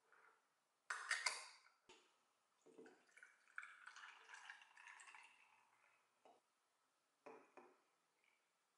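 Aluminium drink can cracked open by its ring-pull about a second in. Then the drink is poured over ice cubes in a glass, followed by a couple of short knocks near the end.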